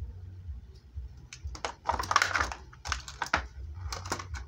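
Clear plastic packaging bag crinkling and crackling in irregular bursts as it is handled, starting about a second and a half in, with a low steady hum underneath.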